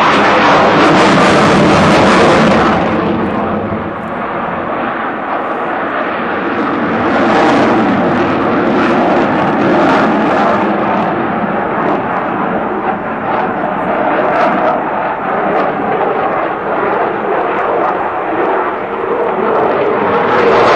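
Jet noise from a Eurofighter Typhoon's two EJ200 turbofan engines, loud and continuous, easing a little after about three seconds and then holding steady.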